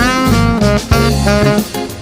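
Background music: jazzy, swing-style track with saxophone or brass lead over bass and drums.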